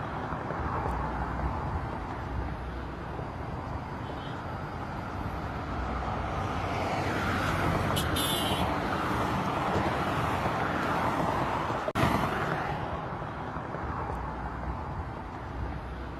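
Road traffic: a steady rush of tyres and engine noise that swells as a vehicle drives past through the middle and then eases off. A single sharp click comes about three-quarters of the way through.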